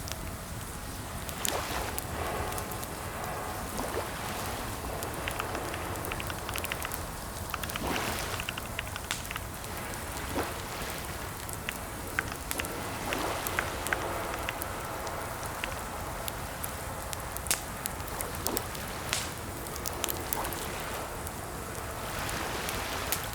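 Typing on a computer keyboard: irregular key clicks in uneven runs, over a steady background hiss.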